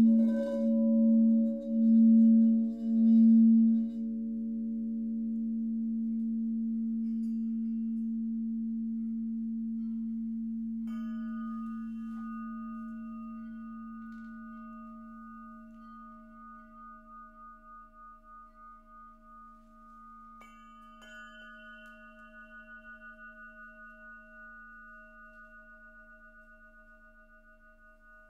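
A quartz crystal singing bowl sounds a low hum that swells and fades about once a second, then rings on by itself and slowly dies away. About eleven seconds in, a quartz crystal pyramid is struck and rings with higher, clear tones. It is struck again about ten seconds later.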